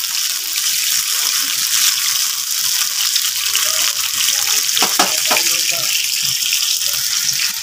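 Marinated fish pieces shallow-frying in hot oil in a nonstick pan, a steady sizzle. A few light knocks, typical of a spatula against the pan, come about five seconds in.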